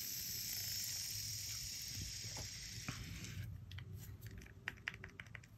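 Small clicks from a Daiwa Steez A baitcasting reel's brake dial being turned to loosen the braking, a quick irregular run of clicks in the second half. Before that, a soft steady hiss that stops about three and a half seconds in.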